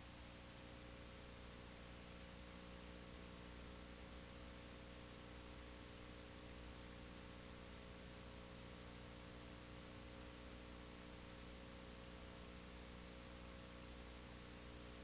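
Near silence: a faint steady electrical hum with hiss, unchanging throughout.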